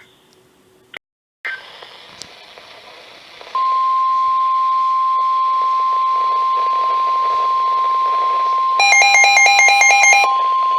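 NOAA Weather Radio's 1050 Hz weather alert tone: a steady single-pitch tone that begins about a third of the way in and holds on, the signal that a warning message is about to be read. About two-thirds through, a rapid electronic beeping joins it for about a second and a half.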